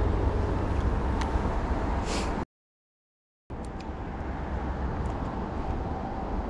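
Steady low outdoor rumble with a few faint ticks, cut to complete silence for about a second midway.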